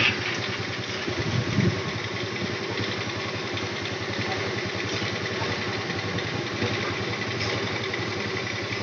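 Small motorcycle engine running steadily under its riders, a low, even drone.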